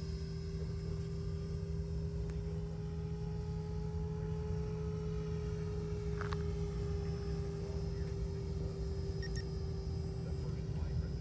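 Freewing BAE Hawk 70 mm electric ducted fan jet with an XRP 2200kv motor, heard from the ground at a distance, whining at one steady pitch at constant throttle. A steady low rumble runs underneath.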